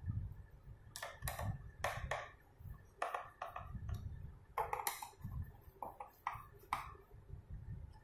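Screwdriver clicking and tapping against a stainless steel fingerprint door lock: about a dozen sharp, irregular metallic clicks, with low handling rumble underneath.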